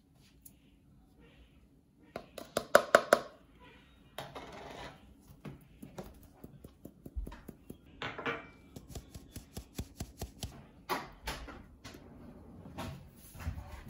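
Flour and cocoa powder being tipped and tapped into a glass mixing bowl of butter dough: a quick run of light taps about two seconds in, a soft rustle of falling powder, and more scattered taps and clinks later.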